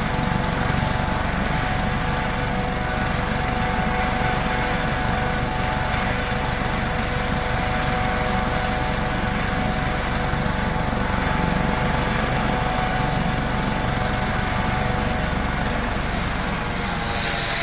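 Helicopter running: a rapid, low rotor beat under a steady turbine whine, holding an even level throughout.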